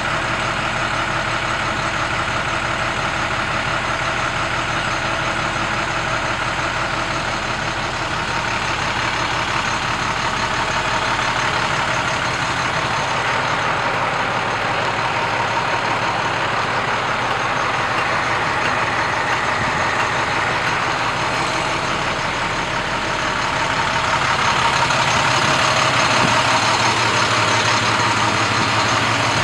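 International 4300 ambulance's diesel engine idling steadily, getting a little louder near the end.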